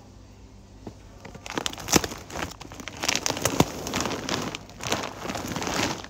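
A large 14 kg plastic sack of dry dog food crinkling and rustling as it is handled and moved. The crackling starts about a second and a half in and goes on in dense bursts.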